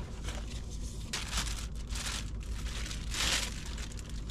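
Crinkling and rustling of crinkly material being handled, in a series of short rustles, the loudest about three seconds in.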